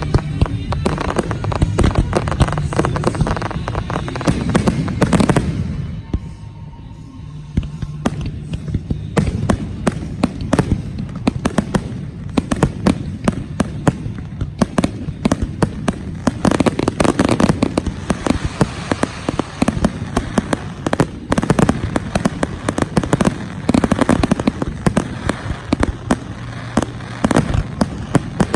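Fireworks finale: aerial shells launching and bursting in rapid, overlapping bangs, with a short lull about six seconds in before the barrage resumes.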